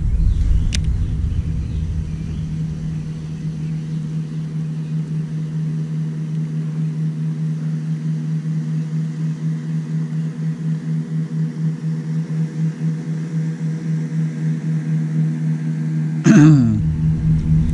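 Kayak drive unit running while trolling: a steady low hum that pulses a few times a second. About a second before the end comes a short, louder sound that falls in pitch.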